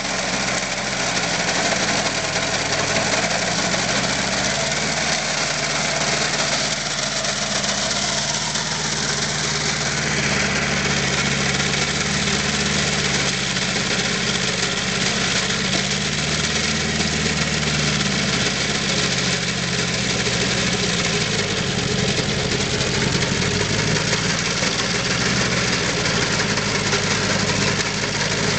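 Compact tractor's engine running steadily under load while driving a rear-mounted rotivator through dry soil, with a continuous churning noise over the engine. The engine's pitch wavers slightly as the load changes.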